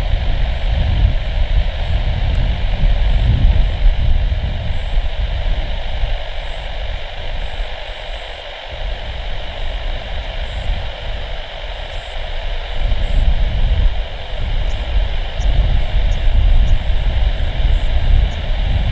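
Jet airliner engine noise from a Super Air Jet Airbus A320 rolling along the runway after landing: a steady hiss over a low rumble. The rumble drops away for several seconds in the middle, then comes back.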